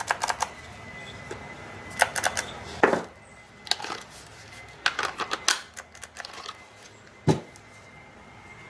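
Irregular clusters of light clicks and taps from wooden toy parts and small hardware being handled on a workbench, over a faint steady high whine.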